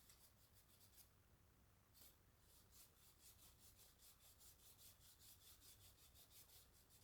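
Near silence, with faint quick rubbing or scraping strokes, about four a second, from about two seconds in until near the end.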